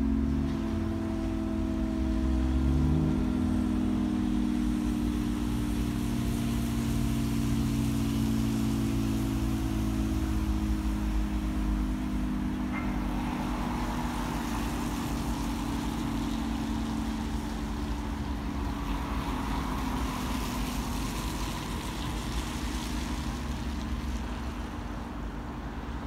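Secomak CS8 siren sounding a steady, low chord of several tones whose pitch sags very slowly. A rushing hiss swells and fades in the middle.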